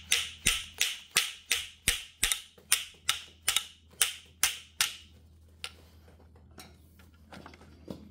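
A run of about a dozen sharp, evenly spaced taps, nearly three a second, each ringing out briefly. They stop about five seconds in, and a few scattered faint clicks follow.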